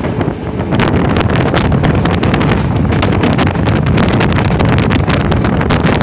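Wind buffeting the microphone at the open door of a passenger train running at speed, with uneven gusts over the steady low rumble of the coaches on the track.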